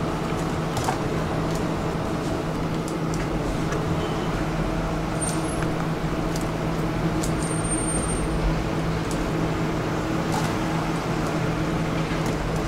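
Steady low machine hum with a constant drone, and occasional light clicks of serving tongs picking salad from the counter trays.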